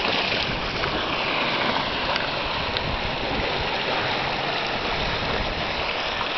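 Sea surf surging and foaming through a narrow gully between coastal rocks: a steady rush of churning water.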